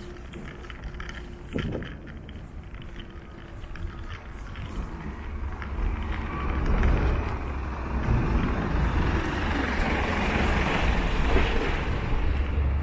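A motor vehicle approaching and passing close by on the street. Its engine rumble and tyre noise build over several seconds, peak, and ease off near the end. A single knock comes about a second and a half in.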